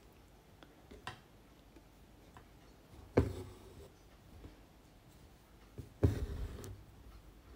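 Handling sounds of hand embroidery: a few soft clicks and knocks on taut fabric in a wooden embroidery hoop as needle and thread are worked through it. The loudest knock comes about three seconds in, and a longer rustle at about six seconds.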